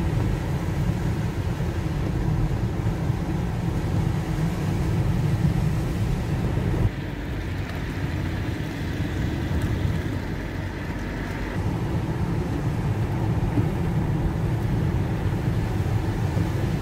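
Steady low rumble of engine and tyre noise from a car driving on a wet, snowy road, heard from inside the cabin. The level drops slightly about seven seconds in.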